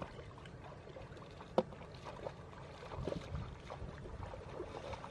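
Water sloshing and splashing as a person wades through a shallow pond, with one sharp click about one and a half seconds in.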